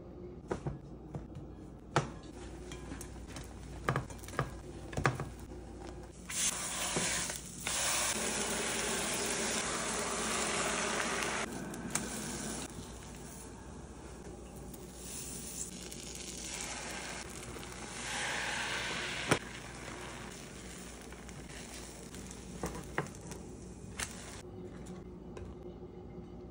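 Eggs sizzling in a hot frying pan. The sizzle starts suddenly and is loud for about six seconds, then dies down, and a second short burst ends in a sharp click. Scattered sharp clicks and knocks come before and after.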